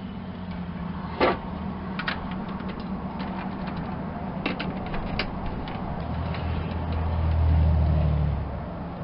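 Sharp metallic clicks and knocks from a winch's hook and fittings being handled, the loudest just over a second in. A low hum swells about six seconds in and stops near the end.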